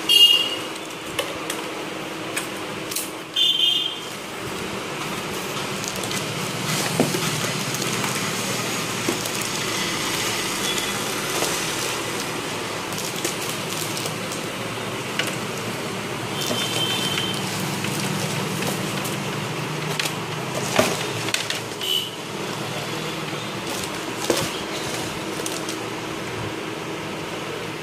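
Cardboard box and plastic air-cushion packaging being handled and unpacked: irregular rustling, crinkling and small knocks, with several short squeaks, over a faint steady hum.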